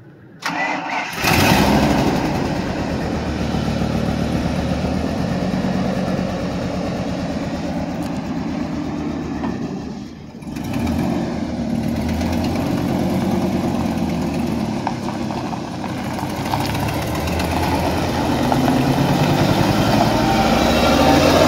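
Truck engine running at a steady idle, with slight rises and falls in pitch; it breaks off briefly about ten seconds in and resumes.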